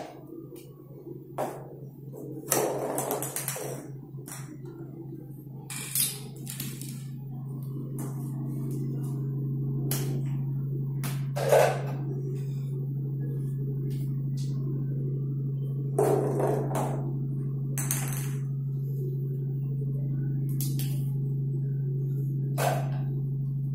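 Scattered knocks and taps from a homemade snooker game: a PVC-pipe cue and small plastic balls striking a cardboard board on a tile floor, the sharpest knock a little before halfway. Under them runs a steady low hum that grows louder about eight seconds in.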